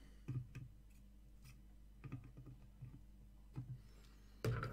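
Faint, scattered small clicks and taps from hand-soldering components onto a printed circuit board, over a low steady hum, with a couple of louder knocks near the end.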